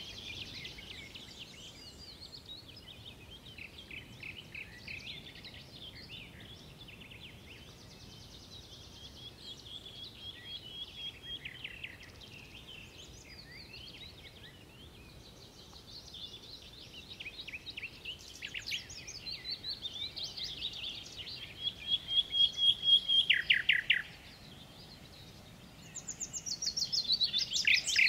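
Songbirds singing, with several overlapping songs of quick chirps and trills. The loudest phrases come near the end: a held note that breaks into a fast run of falling notes, then another rapid trill.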